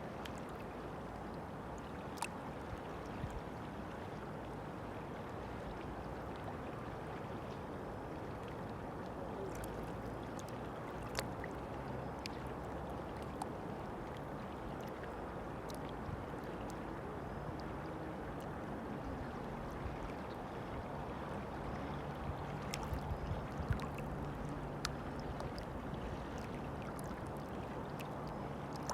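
River water flowing steadily, with scattered sharp little clicks.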